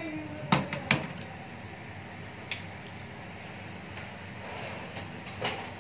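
Handheld spark gas lighter clicked twice, sharp and loud, about half a second and a second in, lighting a gas stove burner; a low steady hiss follows, with a few fainter clicks and knocks.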